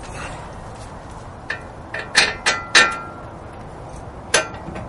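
Metal-on-metal clinks and knocks as a brake caliper bolt is fitted into the caliper assembly on a wheel hub: about five sharp taps, spread out, a couple of them ringing briefly.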